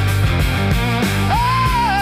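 Blues-rock band playing, with bass and a steady drum beat. About a second and a half in, a held lead note slides up and wavers with vibrato.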